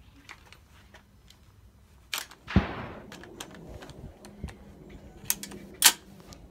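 Several gunshots on a shooting range. There is a crack about two seconds in, then the loudest shot half a second later with a ringing tail, then smaller shots and a strong one near the end, with light clicks of gear being handled in between.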